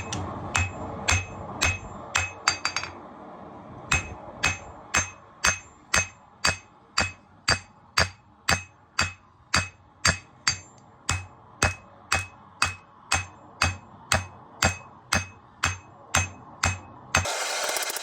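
Hand hammer striking hot 80CrV2 steel on an anvil to forge a knife blade to shape, each blow ringing. The blows come quickly for the first few seconds, then settle to a steady rhythm of about two a second. Near the end the hammering stops and a loud steady rushing noise cuts in.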